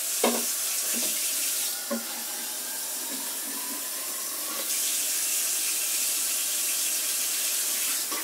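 Water running from a tap into a container in a steady rush, with a few small knocks in the first two seconds. The flow eases about two seconds in and grows stronger again near the middle.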